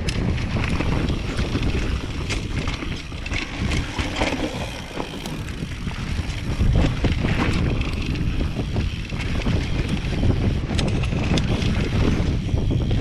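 Wind buffeting the camera microphone as a mountain bike rolls fast down dirt singletrack on Maxxis DHF tyres, with a steady tyre rumble and scattered clicks and rattles from the bike over bumps.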